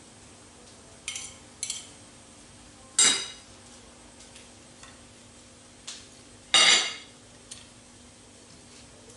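Metal fork and tongs clinking and knocking against a ceramic plate as food is set down on it: a couple of light clinks, then two louder knocks about three seconds in and again about three and a half seconds later, with a few smaller taps between.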